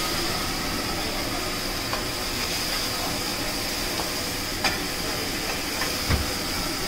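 Steady hissing rush of a high-pressure gas burner and big flames flaring up from a wok being tossed, with a few sharp clicks of metal and a low thump about six seconds in.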